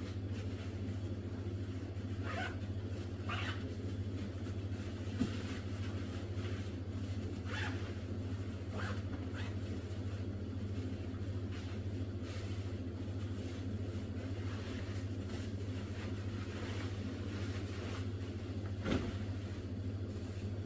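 Steady low hum throughout, with a few brief, faint rustles scattered through it.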